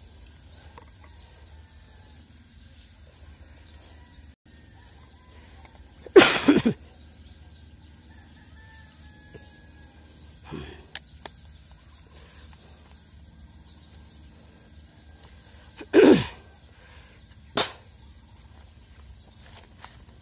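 Chicken calls: two loud short calls, about six seconds in and again about sixteen seconds in, with fainter brief calls between, over a faint steady high-pitched tone.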